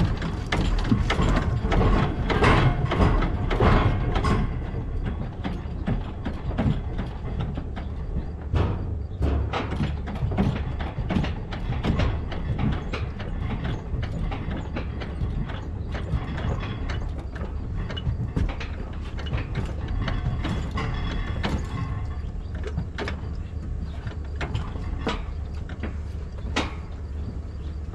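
Irregular metallic clicks, ratcheting and clunks of tools and parts being worked as a seized tractor engine, a 1947 Case VAC four-cylinder, is forced to turn backwards. A steady low rumble runs underneath. The clicking is densest in the first few seconds.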